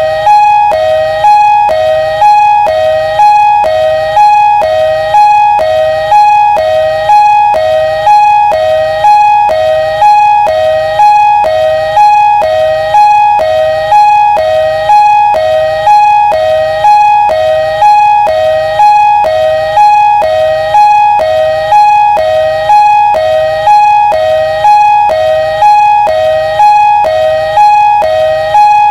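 Two-tone (hi-lo) ambulance siren alternating steadily between a higher and a lower note, about one high-low pair a second, loud and unchanging.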